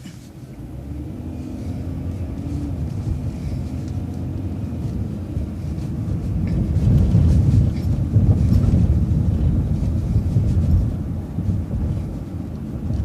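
Low rumble of a vehicle driving along a city street, growing louder through the first half and easing off near the end.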